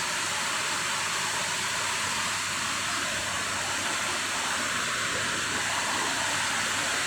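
Rain falling steadily, an even hiss loud enough to drown out speech.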